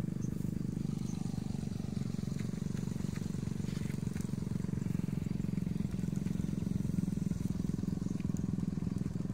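A small engine running steadily, a constant low drone with a fast even pulse.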